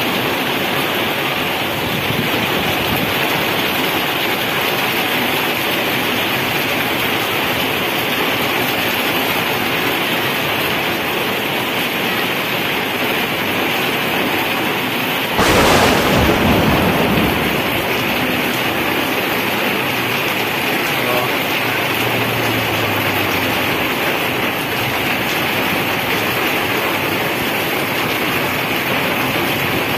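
Heavy rain pouring steadily onto wet pavement and parked cars. About halfway through a sudden louder crash breaks in and fades over about two seconds.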